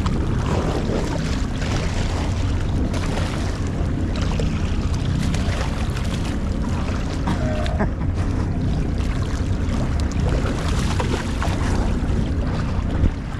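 Steady wind rumble on the microphone over water washing against a boat's hull at sea.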